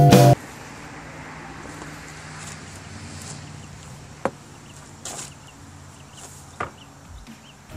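Quiet background noise with a faint steady hum, and a sharp knock about four seconds in as a corded jigsaw is lifted off a plywood sheet; a softer rustle and a second small knock follow as it is handled.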